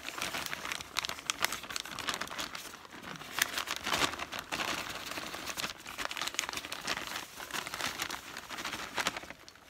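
Thin plastic bag crinkling and rustling as it is shaken and tipped to empty powdered Custer feldspar into a stainless steel bowl, in quick irregular crackles that ease off near the end.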